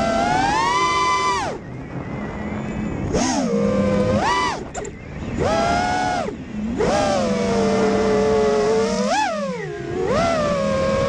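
FPV freestyle quadcopter's brushless motors whining, the pitch rising and falling with the throttle. It drops away sharply as the throttle is cut about a second and a half in and again around five seconds, then surges back and holds, with quick rising spikes near the end.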